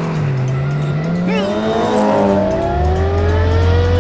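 Cartoon race-car engine sound effects: several overlapping revving whines rising slowly in pitch as the cars accelerate, over background music.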